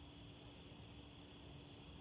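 Near silence: a faint low rumble under a steady faint hum.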